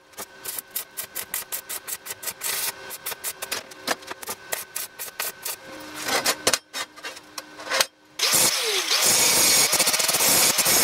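Quick repeated scraping strokes on welded steel pieces, then about eight seconds in an angle grinder starts up and grinds into the steel with a steady loud hiss.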